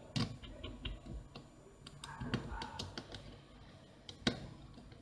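Small metal precision tool clicking and scraping against the plastic mid-frame of a Samsung Galaxy S3 as worn small plastic parts are worked loose. It is a scatter of sharp clicks, busier about two to three seconds in, with the loudest click a little after four seconds.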